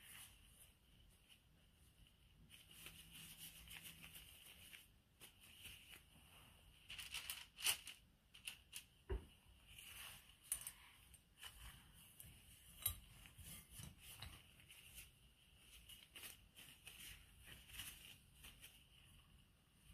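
Faint crinkling of thin plastic gloves and soft clinks against a glass mixing bowl as cookie dough is scooped and shaped by hand, with a few sharper clicks scattered through.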